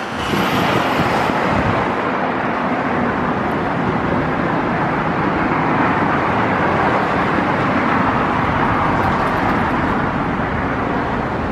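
Steady roar of road traffic, an even wash of noise.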